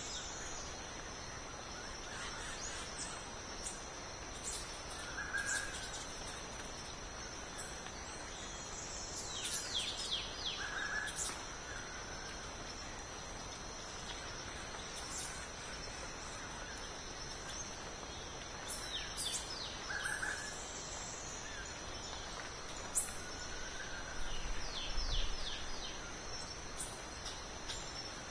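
A steady high-pitched insect drone, with a small songbird repeating a short song of quick falling notes three times, and a few brief lower whistled notes in between.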